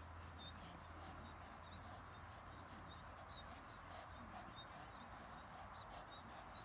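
Faint scuffling of a Belgian Malinois gripping and tugging a decoy's padded bite sleeve, with a short high chirp repeating about twice a second.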